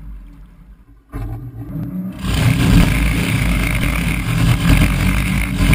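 The Ferrari V12 engine of the Arno XI racing hydroplane running at speed, heard from on board together with rushing water and wind. It is quieter at first, then gets louder in a sudden step about a second in and again about two seconds in as the boat speeds up.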